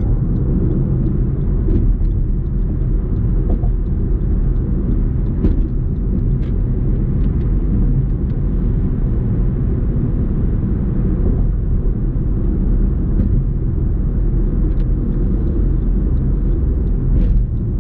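Steady road rumble of a car driving on the highway, with a few faint ticks.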